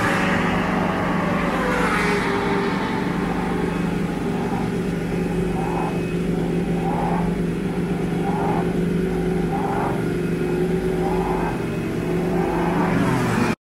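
Ducati Panigale V4 R superbike's V4 engine running steadily at idle, its revs falling back over the first couple of seconds after a blip.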